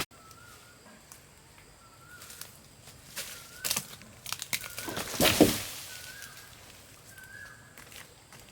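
Wood cracking in a series of sharp snaps, then one loud crash about five seconds in: a felled tree coming down after the chainsaw cut. A bird gives a short rising chirp several times.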